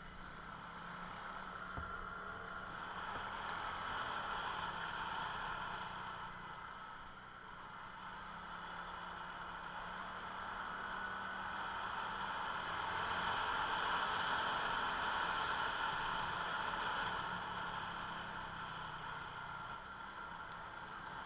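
Motor vehicle engine and road noise that swells twice and fades.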